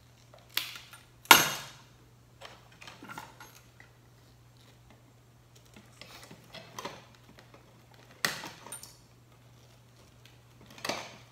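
Wire cutters snipping electrical wire: a few sharp metallic snaps, the loudest about a second in, with lighter clinks and handling between.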